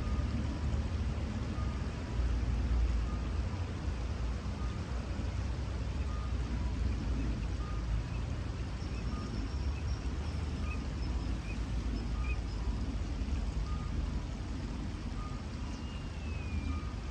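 Steady low rumble of road traffic crossing a nearby bridge, with a faint electronic beep repeating less than a second apart. A few faint bird chirps come in over the second half.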